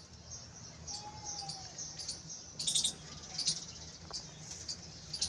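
Faint, scattered high-pitched bird chirps over a low steady hum, with a short cluster of chirps about two and a half seconds in and another about a second later.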